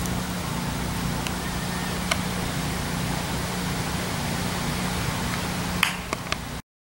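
Steady outdoor background noise, a hiss with a low steady hum under it, broken by a few faint sharp clicks near the end before the sound cuts off abruptly.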